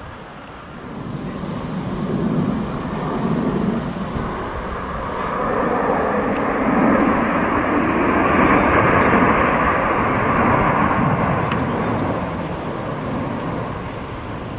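Aircraft flying past: a broad engine rumble that builds, peaks about two-thirds of the way through, then fades away.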